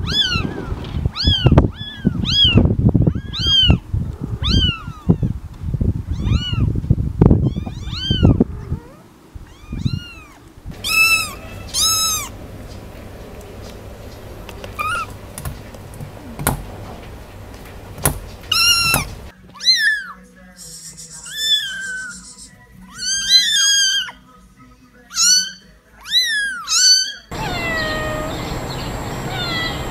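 Kittens meowing: a string of short, high-pitched mews, about two a second at first, then sparser. Near the end comes one lower meow from an adult cat.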